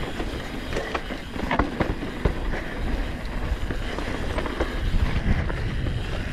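Downhill mountain bike ridden fast down a dry dirt trail: steady tyre and wind rumble with frequent sharp clicks and rattles from the bike over bumps.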